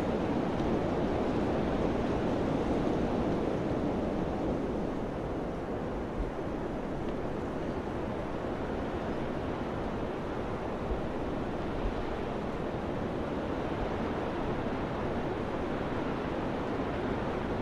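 Steady rushing wind, swelling a little in the first few seconds and then easing, with a few soft low thumps.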